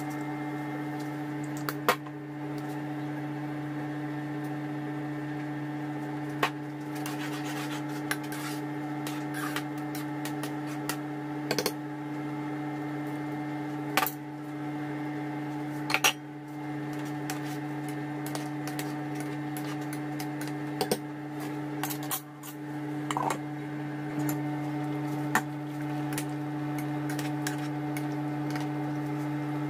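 Scattered clinks and knocks of a spoon and dropped ingredients against a stone-coated cooking pot as vegetables are added to a stew and stirred, about a dozen sharp strikes spread through, over a steady hum.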